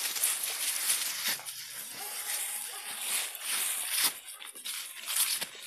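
Dry fallen leaves rustling and crunching under walking feet and dogs' paws. A faint thin tone lasts about a second, about two seconds in.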